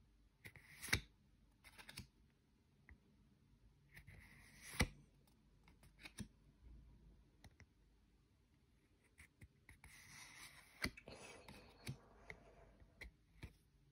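Paper trading cards slid off the front of a hand-held stack and tucked to the back, each move a brief swish of card against card ending in a sharp click. This happens about a second in, near five seconds, and again near eleven seconds with a longer rustle.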